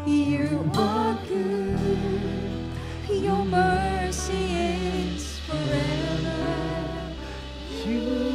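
Worship song: a voice singing a wavering melody over steady low bass notes that change every second or two.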